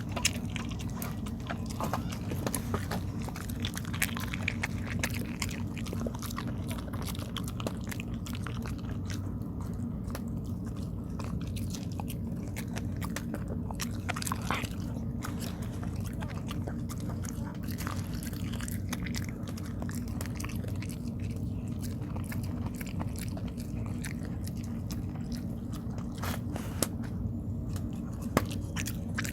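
A dog chewing rice cake (tteok), with irregular clicking bites and chews throughout, over a steady low hum.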